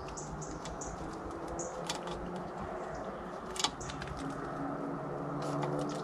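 Great spotted woodpecker pecking at fat balls in a wire feeder close to the microphone: scattered light taps and clicks, with two sharper knocks about two and three and a half seconds in.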